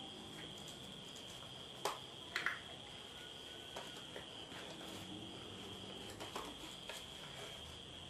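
Scattered clicks and taps of hands handling a small plastic remote-control toy car and its packaging, the loudest pair about two and a half seconds in, over a steady high-pitched trill.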